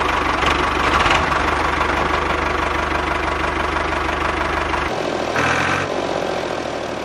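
Miniature tractor's motor running steadily with a chugging, knocking engine sound; the low chug drops away about five seconds in.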